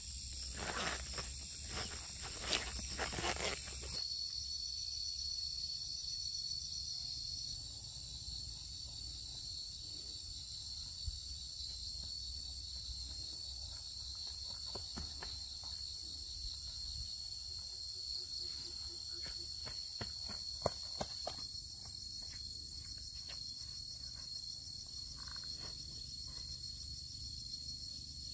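Steady, high-pitched shrilling of insects at several pitches throughout. In the first few seconds there is crackling and rustling of leaves being handled and bundled, and later there are scattered footsteps on a dirt path.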